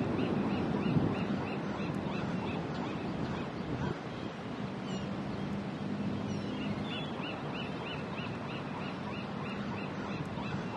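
Beach ambience: a steady rush of wind and surf, with a bird giving runs of short, high chirps about four or five a second, once at the start and again in the second half.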